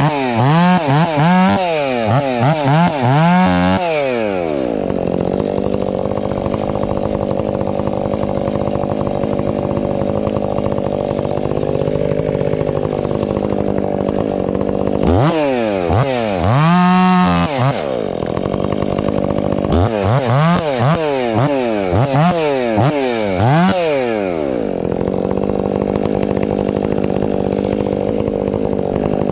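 Husqvarna 500i two-stroke chainsaw working timber. It is revved up and down in quick repeated blips near the start and twice more in the second half. In between it holds a steady high speed for long stretches, as when cutting through the log.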